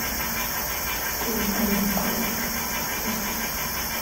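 Steady air-conditioning noise in a room with open windows: an even, constant hiss that sits under everything.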